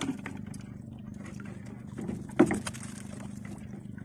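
Clicks and knocks from a collapsible net crab trap's frame being handled, with one sharp knock about two and a half seconds in, over a steady low engine hum.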